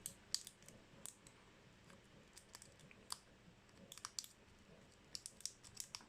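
Faint, irregular metallic clicks and scrapes of a broken lock pick working the pins inside a Delta padlock's keyway.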